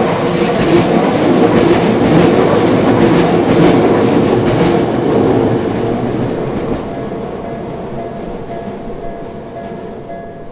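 Tokyu Ikegami Line electric train passing over the level crossing, its wheels clacking over the rail joints. It is loudest in the first half, then fades steadily as it moves away.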